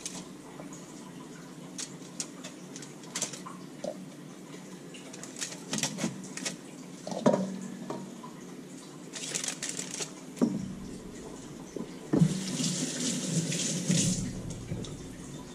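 Kitchen tap running into a sink for about two seconds near the end as hands are rinsed under it. Before that come scattered light crinkles and taps from fish fillets being laid on a foil-lined glass baking dish.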